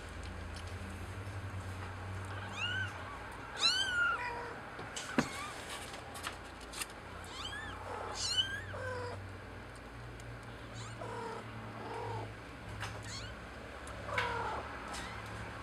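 Young kittens mewing: short, high-pitched mews scattered through, several in quick succession around four and eight seconds in, over a steady low hum that fits the nursing mother cat purring. A single sharp click about five seconds in.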